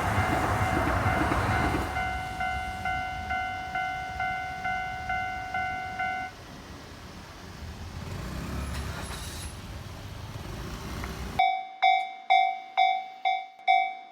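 Japanese level-crossing warning bell ringing its repeated electronic 'kan-kan', about two strikes a second, while a tram rumbles past in the first couple of seconds. The bell stops about six seconds in, leaving quiet street noise. Near the end a louder, cleaner ringing of the same kind starts suddenly.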